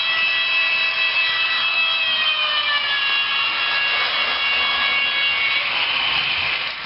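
Sound decoder of an HO-scale ViTrains Minuetto model train playing its motor sound through the model's small speaker: a whine of several tones that glides down in pitch about two to three seconds in, then gives way to a rushing noise near the end.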